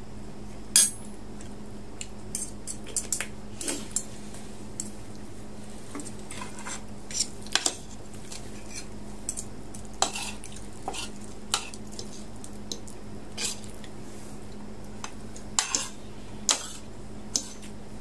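Metal fork and spoon clinking and scraping against a ceramic plate as rice is scooped up, in scattered irregular clicks, the loudest about a second in. A steady low hum runs underneath.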